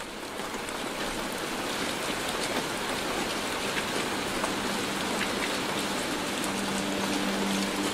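Steady rain falling on wet pavement, an even hiss with scattered drop ticks, fading in at the start. A faint low steady tone comes in about halfway through.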